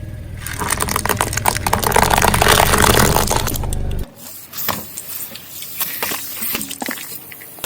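Car tyre rolling onto and crushing something brittle: dense crackling and snapping over a low engine rumble, which cuts off suddenly about four seconds in. Scattered sharp cracks and snaps follow.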